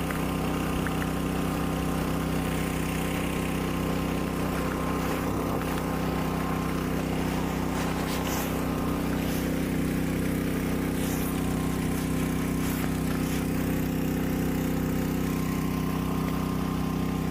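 An engine running steadily at an even pitch, with a few faint splashes of water.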